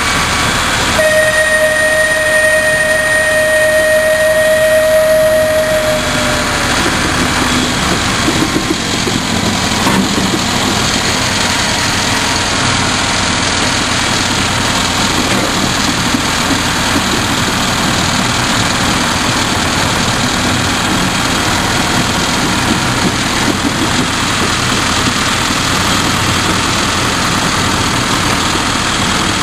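Miniature railway train running, heard from aboard: a steady engine-and-track drone with wind noise. About a second in, a single long steady whistle note sounds for some five seconds.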